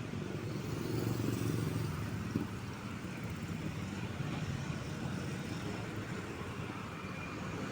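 Road traffic: a vehicle engine running steadily, growing louder for a second or so about a second in, with one short click about two and a half seconds in.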